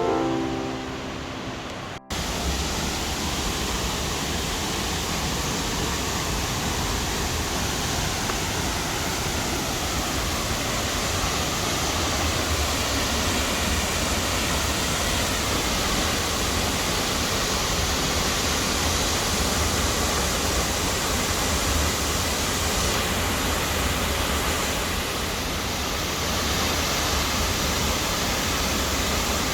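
Piano music fades out in the first two seconds. Then a waterfall's water crashes into its plunge pool as a steady, unbroken rush with a deep rumble underneath.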